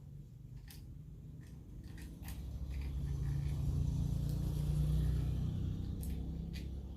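Sharp plastic clicks and handling of ring light tripod parts as a phone holder is fixed in place, with a low rumble that swells through the middle and fades near the end.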